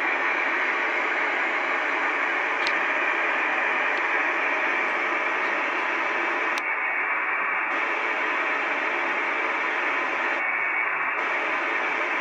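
FM amateur radio receiver tuned to the ISS APRS downlink on 145.825 MHz, giving out steady static hiss with the squelch open. Two faint clicks come through, and twice the upper part of the hiss briefly drops away.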